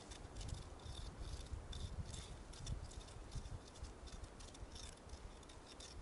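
Faint, irregular crunching and scraping at snow and ice as someone works at a frozen river's surface by hand, over a steady low rumble of wind.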